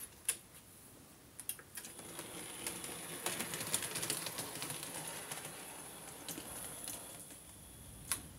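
Hornby OO-gauge Peckett W4 model locomotive running with a short goods train, its wheels clattering in a rapid stream of small clicks over the rail joints and points, swelling to a peak and then fading away. Before that, a few sharp separate clicks as a hand handles the wagons on the track.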